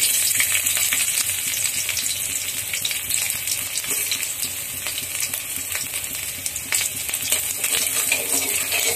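Chopped garlic dropped into hot oil in an aluminium kadai, sizzling with fine crackles. The sizzle starts abruptly as the garlic goes in, and a spatula stirs it near the end.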